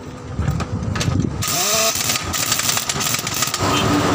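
Heavy pneumatic wheel-nut impact wrench on a wheeled trolley, running on a truck's wheel nuts: a loud mechanical running noise that settles into a steadier hum about three and a half seconds in.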